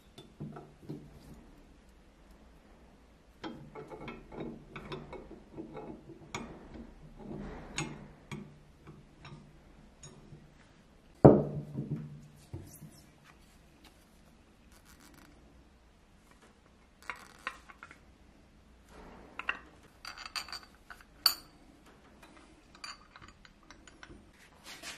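Painted iron parts of a mechanical coin bank being handled and fitted together by hand: scattered light clinks and rubbing, with one sharp knock about eleven seconds in.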